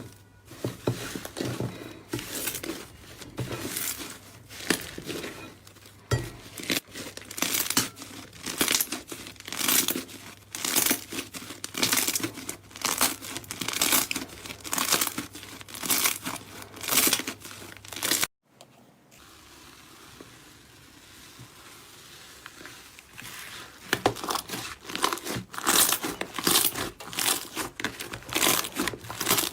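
Slime being squeezed and worked by hand, giving quick crackles about twice a second. About 18 seconds in the sound cuts out to a quieter stretch before the crackling starts again.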